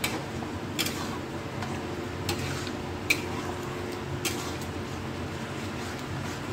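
Metal spatula stirring a thick, wet masala paste in a kadhai, with scraping and a handful of sharp clinks against the pan over a steady low hum.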